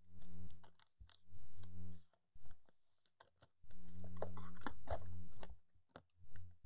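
Crinkling and clicking of a plastic card sleeve and rigid card holder being handled, heard in several short spells. A low steady hum comes and goes with them.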